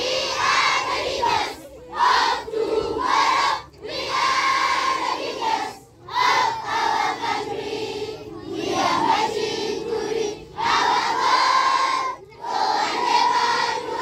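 A large group of schoolchildren chanting in unison, loud phrases of about two seconds each separated by short breaks.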